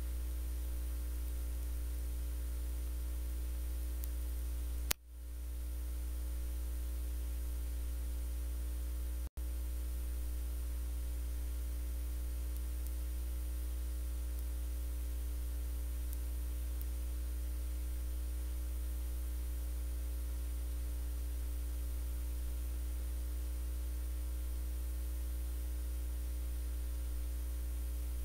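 Steady low electrical mains hum with hiss and a few faint steady tones, with no speech. A click and brief dip about five seconds in, and a split-second dropout a little after nine seconds.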